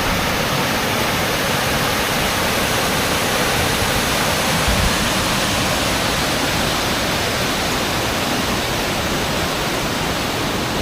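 Small waterfall and river rushing steadily, an even hiss of falling water with no change in level.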